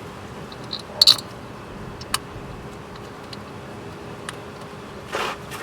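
Scattered clicks and knocks of hands and tools working on a car's ignition coil packs, with a sharp double click about a second in, a single click about two seconds in, and a short scraping rustle ending in a click near the end.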